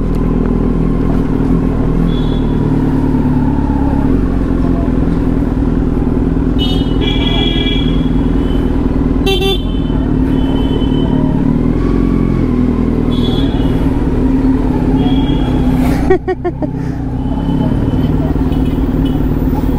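Kawasaki Z900's inline-four engine running steadily at low revs as the motorcycle rolls slowly. The note drops briefly about sixteen seconds in, then picks up again.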